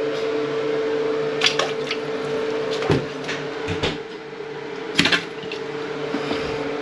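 A steady electrical or fan hum runs throughout, with several short clicks and knocks from handling tools at a toilet, the loudest a double knock about five seconds in.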